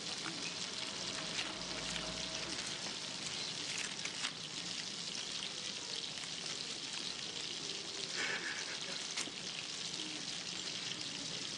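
A steady hiss with a few faint clicks.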